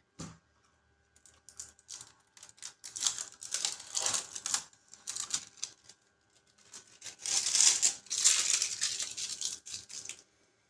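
Plastic packaging crinkling and rustling as it is peeled off, with small clicks, in two spells: one about three seconds in and a longer, louder one about seven seconds in.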